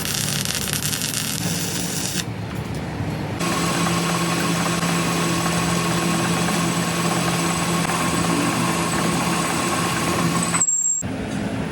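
Workshop machinery running steadily, a hum with a thin high whine over it. It changes between shots: a hissing stretch at first, then a steadier run from about three seconds in that cuts off abruptly shortly before the end.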